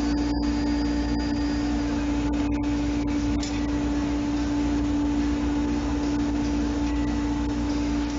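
Steady machine hum with a strong low drone and hiss, broken by a few very short dropouts.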